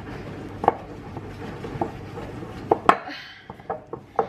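Wooden spoon stirring stiff chocolate cookie dough in a glass mixing bowl, with irregular knocks and scrapes of the spoon against the glass, more frequent in the second half.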